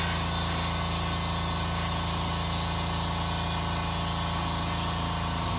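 Air compressor's motor-pump running steadily, an even low hum with a constant hiss above it.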